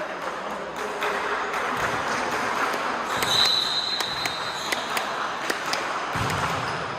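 Crowd noise in a sports hall during a volleyball game, swelling and then easing, with sharp knocks and claps throughout. A high whistle blast of about a second comes about three seconds in, and a low thump comes near the end.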